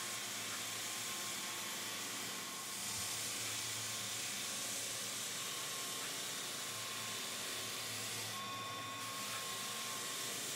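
Belt floor sander running with a Norton Red Heat 60-grit ceramic belt, cutting into a coated timber floor: a steady sanding hiss over the machine's hum. The cut sounds very smooth.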